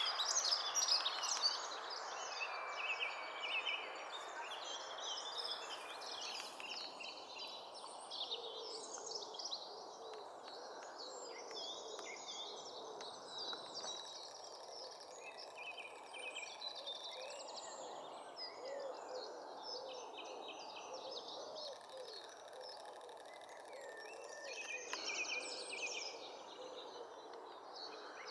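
Wild birds singing and calling over a steady background hiss. The song is busiest in the first couple of seconds and again near the end.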